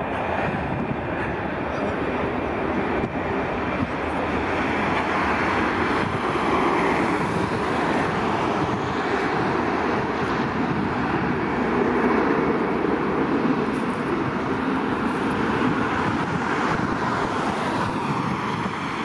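Airbus A320-214 jet engines (CFM56-5B) at takeoff power during the takeoff roll: a steady rushing jet noise that grows slightly louder over the first few seconds, then holds.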